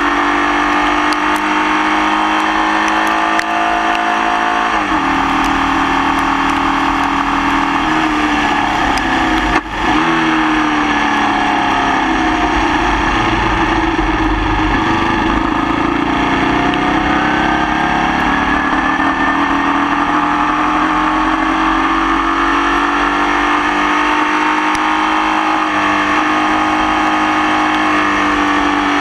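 Formula Vee race car's air-cooled Volkswagen flat-four engine at racing revs, pitch dropping sharply at gear changes and falling then climbing again through a corner, running with a persistent misfire. A sharp knock with a brief drop in level about ten seconds in.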